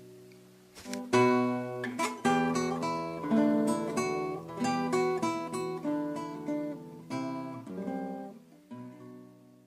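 Background music played on acoustic guitar, plucked notes and chords ringing out one after another, dying away near the end.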